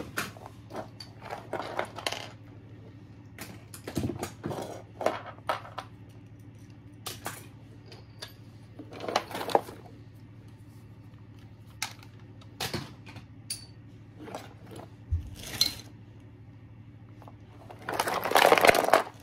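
Small plastic toys clicking and clattering as they are picked up and sorted by hand, in scattered knocks, with a longer, louder burst of handling noise near the end.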